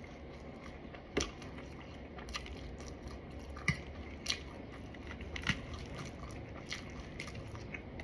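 A person chewing crunchy food, with irregular crisp crunches and clicks about once a second.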